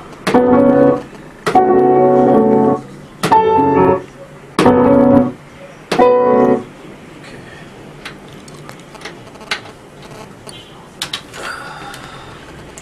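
Piano-like chord samples played from the pads of a pad sampler: five sustained chord stabs over the first seven seconds, each starting sharply and cut off abruptly. After that only faint taps remain.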